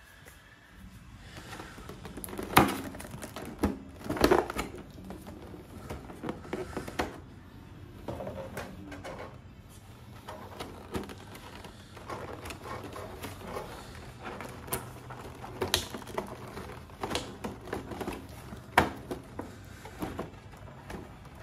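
Clear plastic blister trays of a boxed action figure being handled and pulled apart: irregular plastic clicks, crackles and knocks, the loudest a little over two and a half seconds in, about four seconds in, and near the end.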